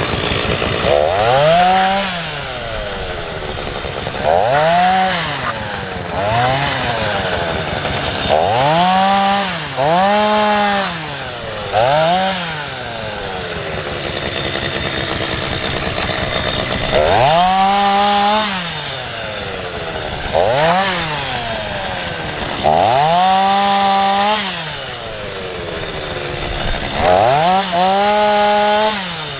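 Two-stroke chainsaw blipped about ten times. Each time the engine speed climbs sharply, holds briefly, then falls back to a lower running note in between.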